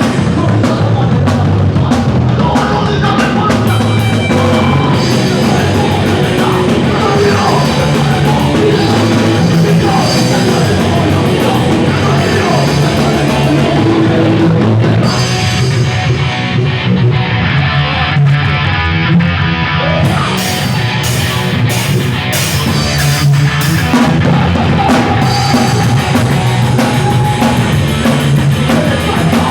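A hardcore punk band playing live: fast drum kit and distorted electric guitars. About fifteen seconds in the cymbals drop out for a sparser passage, and the full band comes back in about five seconds later.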